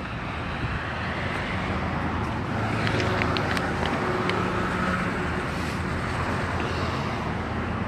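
Road traffic passing by: car engine and tyre noise that swells over the first few seconds and eases off toward the end.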